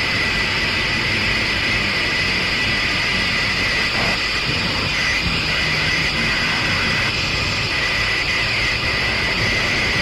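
Harsh noise improvisation: a dense, unchanging wall of hiss and rumble, with a bright, piercing band of hiss high up.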